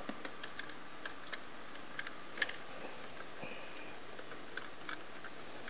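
Light, irregular clicks and taps of metal parts being handled as the oil cooler and filter housing are set in place and its bolts started by hand, with one louder click about halfway and a brief squeak a little after.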